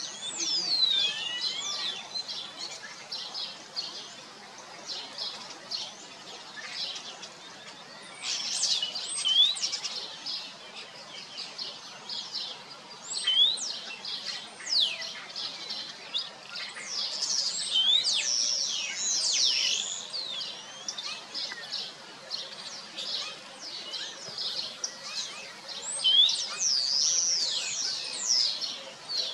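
Small birds chirping and singing, with many quick, high sweeping whistles and chirps. They come in busy clusters about a third of the way in, around the middle, and again near the end, over a faint outdoor hiss.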